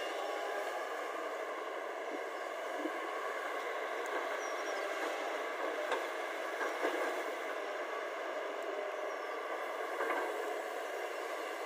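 JCB tracked excavator's diesel engine running steadily as it digs and swings. A few light knocks come near the middle and again near the end.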